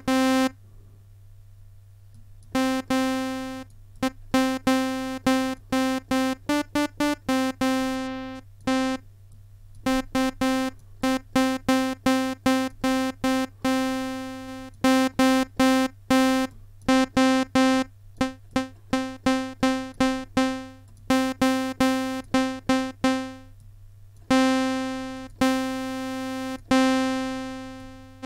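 Monophonic software-synthesizer patch played one note at a time, mostly on the same pitch: quick short stabs mixed with held notes, each with a bright tone that starts sharply and fades away.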